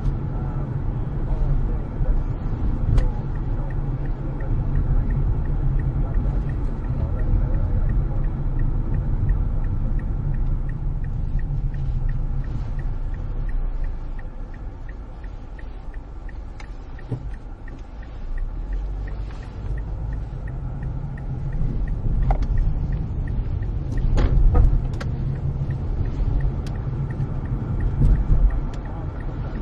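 Car interior road noise while driving: a steady low rumble of engine and tyres, with occasional small knocks and a faint regular ticking through the first half.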